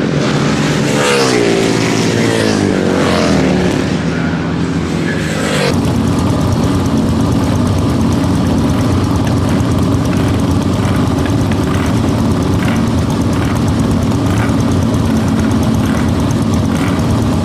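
Racing motorcycle engines passing at speed, their pitch falling and rising through gear changes. About six seconds in, the sound changes abruptly to several racing sidecar outfits' engines running steadily together.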